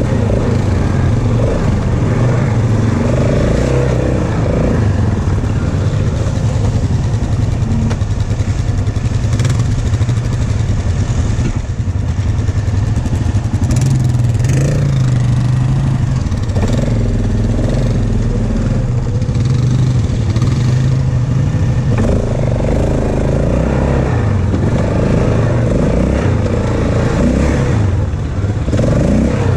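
ATV engine running steadily under riding load on a dirt trail, its pitch rising and falling as the throttle changes.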